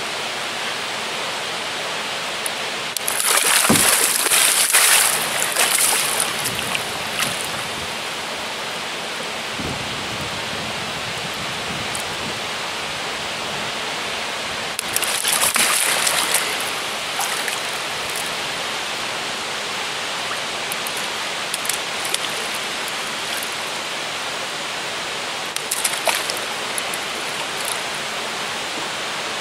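Large wels catfish thrashing at the surface beside the boat as it is reached for. The splashing comes in two bouts of a few seconds, about three seconds in and again around fifteen seconds, with a short splash near the end, over a steady hiss.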